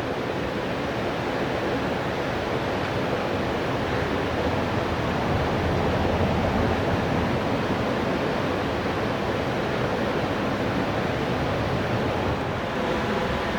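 Mountain river rushing steadily over rocks, a continuous even roar of whitewater.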